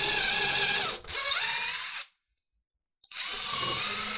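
DeWalt 20V Max XR brushless impact driver driving a screw into the composite-wood edge of a bifold closet door. It runs for about two seconds with a brief dip in the middle, stops for about a second, then runs again for just over a second near the end.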